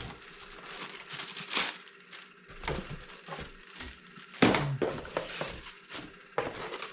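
Cardboard and plastic packaging rustling and crinkling as a small boxed ceiling fan is unpacked by hand, with irregular handling knocks, the loudest about four and a half seconds in.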